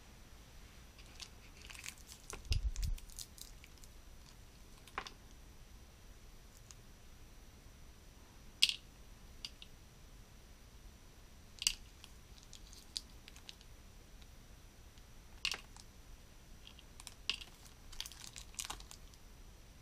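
Small hard plastic toy accessories handled between fingers: scattered sharp clicks and light taps. There is a brief rustle and low bump about two to three seconds in.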